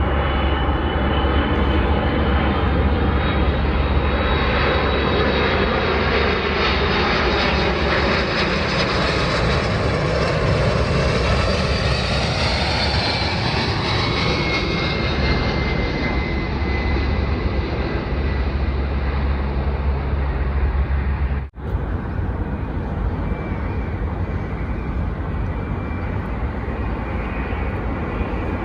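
Jet airliner passing low overhead: the engine noise swells to a peak about halfway through, with a whining tone that falls in pitch as it goes by, then eases off. A sudden brief dropout comes about two thirds of the way in.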